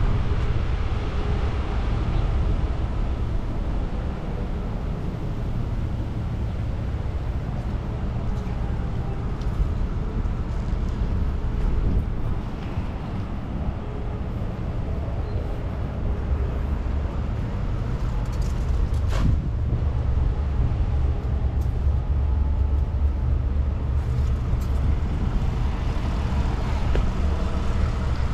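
City street traffic: cars and a bus passing and running nearby, a steady low engine rumble, with one short click about two-thirds of the way through.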